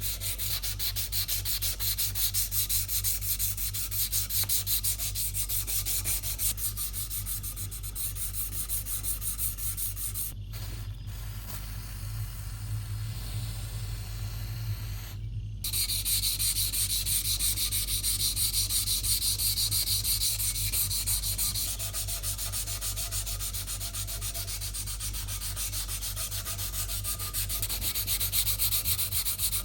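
Abrasive hand sanding in fast, even back-and-forth scratching strokes, as on a knife being restored. The strokes break off briefly twice, about ten and fifteen seconds in, and are louder for a stretch after that.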